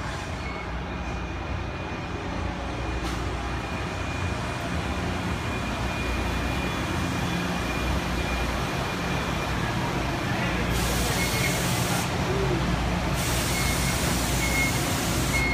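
NJ Transit Arrow III electric multiple-unit train running past, a steady rumble of wheels on rail that grows gradually louder, with a few thin steady high tones over it. A hiss of air joins about eleven seconds in, breaks off for a moment, and comes back.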